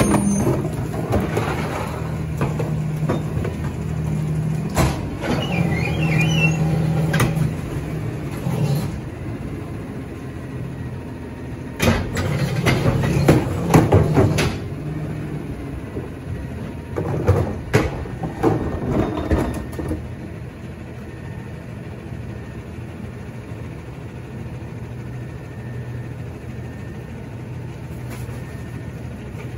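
Autocar ACX McNeilus rear-loader garbage truck's engine running, sped up for stretches in the first half and idling steadily in the last third. Plastic wheeled trash carts clatter and bang against the rear hopper as they are tipped and emptied by hand, loudest a little before the middle.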